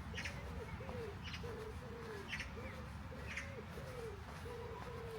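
A pigeon cooing in a steady run of low, arching notes, about two a second. A small bird chirps higher up about once a second.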